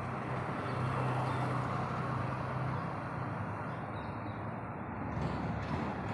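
Street traffic: a steady low engine hum from motor vehicles over road noise, a little stronger in the first half.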